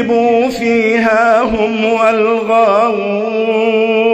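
A man's voice reciting the Quran in slow melodic tajweed style, holding one long drawn-out note steady in pitch, with wavering melodic turns over it.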